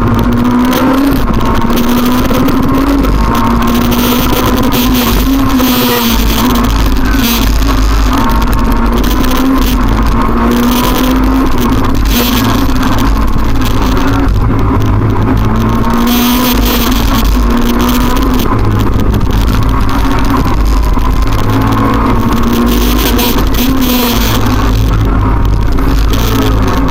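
Rally car engine heard from inside the cabin at racing pace, revving up and dropping back again and again as the driver shifts through the gears.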